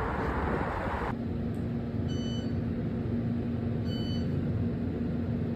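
Wind buffeting the microphone for about a second, cut off abruptly. Then a steady low hum with one held tone, and a short high double beep about every two seconds.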